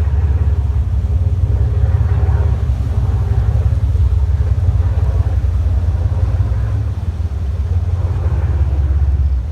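Deep, steady engine rumble of a small high-speed passenger boat under way as it pulls out of the harbour.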